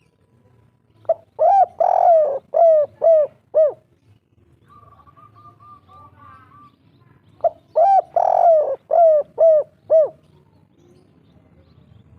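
Spotted dove cooing its 'kuk 3' song: two phrases a few seconds apart, each a run of short arching coo notes. Between them a faint quick series of higher notes comes from another bird.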